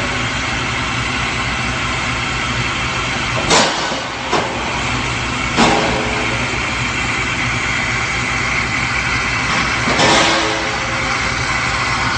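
Steady hum of industrial machinery running, broken by a handful of short knocks and clatters, about three and a half, four and a half, five and a half and ten seconds in. A faint steady high whine joins in during the second half.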